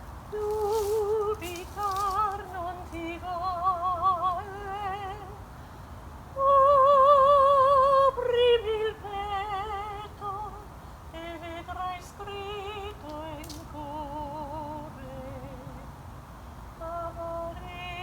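A woman singing without words, with a strong vibrato on every note, in short phrases of held notes. The loudest and longest note comes about six seconds in, held for about a second and a half before it slides down.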